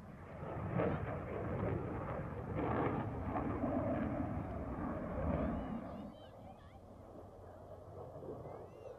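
Jet noise from a Royal Norwegian Air Force F-16 Fighting Falcon flying its display. The dense rumble drops away sharply about six seconds in.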